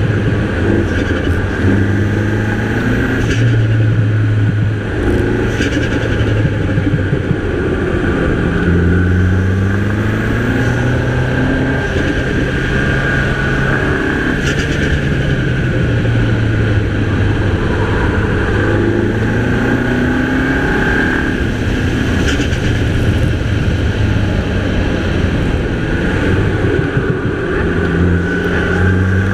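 Mini Cooper's 2.0-litre turbocharged four-cylinder engine under hard driving, its revs climbing again and again and dropping back as it accelerates out of bends and lifts off.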